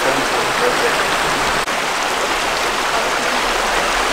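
Shallow, rocky creek running over stones, a steady rush of water.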